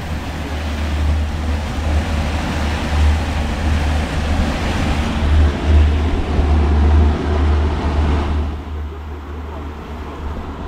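A fishing boat underway offshore: gusty wind buffeting the microphone over engine noise and water rushing past the hull. The rushing noise drops away about eight seconds in.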